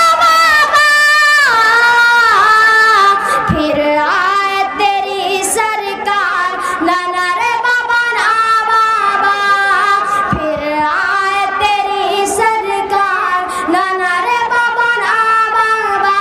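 A boy singing verse solo into a microphone, amplified over a public-address system. He holds long, wavering notes and breaks into a new phrase every second or two.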